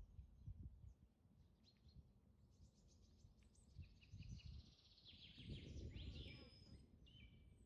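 Faint birds chirping, with many short high calls that grow busier from about halfway, over a low rumble.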